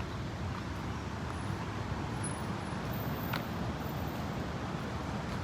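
Steady rumble of road traffic, with a single faint click a little past halfway.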